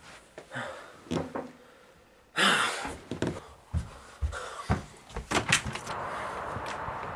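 Footsteps and sharp thumps and clicks as a front door is handled and opened, after a loud rustling burst about two and a half seconds in. From about six seconds in there is a steady hiss of outdoor air.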